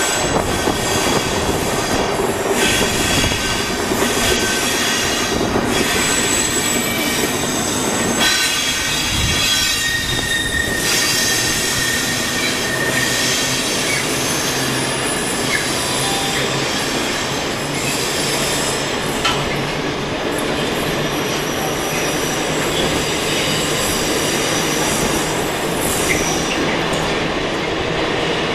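Intermodal container freight train rolling past, its locomotive going by first and then a long line of flat wagons loaded with shipping containers. A steady loud rumble of wheels on rail, with high steady whining tones above it.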